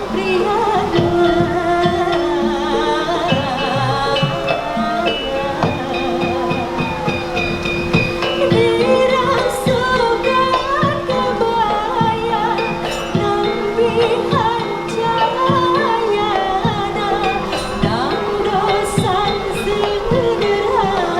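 Sundanese gamelan degung ensemble playing: struck, ringing metallophone and gong notes in a regular pulse, with a bending melody line above them.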